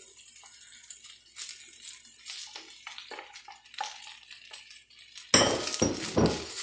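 Wooden spatula scraping cooled cooked rice out of a glass bowl into a wok, with light scrapes and clinks. About five seconds in come a few loud knocks and clatters.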